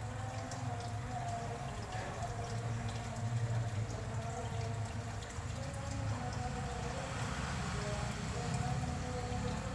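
Aquarium aeration: a stream of air bubbles bubbling and trickling steadily in the tank water, over a steady low hum.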